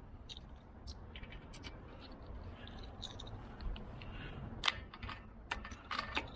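Small metallic clicks of a newly fitted gate lock's mechanism being worked to test it, scattered through, with one sharper click about two-thirds of the way in and a few quick clicks near the end.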